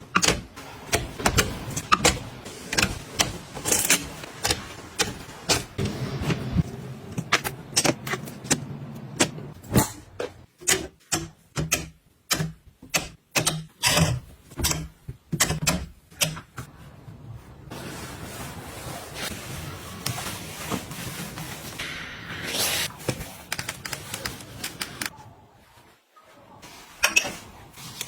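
Rapid, irregular clicks, taps and clatter of small items being handled and set down. After that comes a quieter stretch of rustling with a brief hiss, and a few more clicks near the end.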